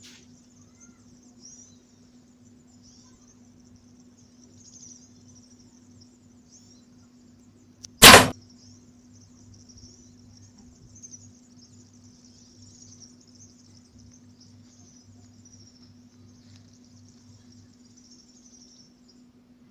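A single short, sharp bow shot about eight seconds in, over a steady high chirping of insects.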